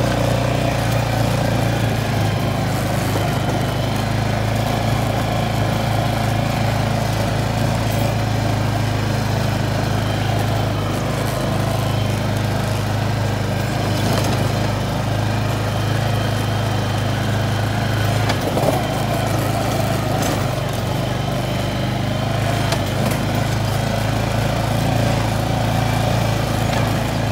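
ATV engine running steadily at low speed as the quad rolls over a rough dirt trail, with a few knocks and rattles from the bumps.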